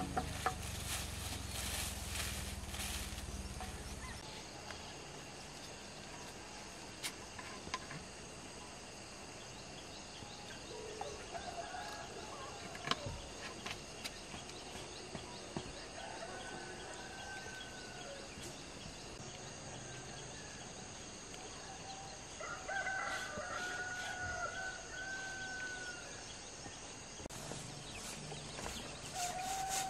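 A rooster crowing several times over a faint steady background, with a few sharp clicks and knocks in between.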